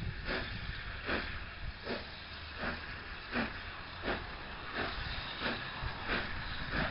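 Steam locomotive starting away with its train, exhaust beating in slow, even chuffs about every three-quarters of a second over a steady hiss of steam.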